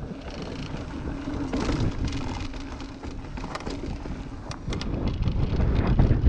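Mountain bike descending a dirt trail: tyres rolling over the ground, with sharp knocks and rattles from the bike over bumps, and wind buffeting the camera microphone. It gets louder near the end.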